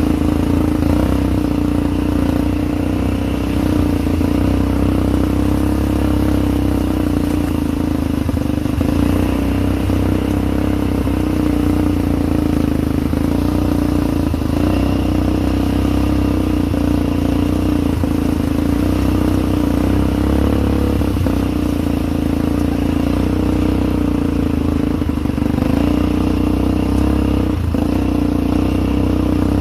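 ATV engine running steadily, a continuous loud drone with no pauses.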